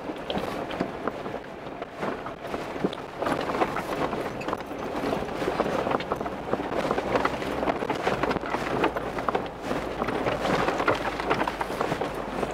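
A 4x4's tyres crunching over a rough mountain-pass dirt track, with dense, irregular clatter and rattling, over a low engine hum that grows stronger about eight seconds in.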